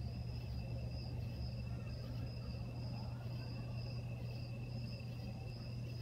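Outdoor insect chorus: steady, continuous high-pitched trilling in two pitches, over a steady low hum.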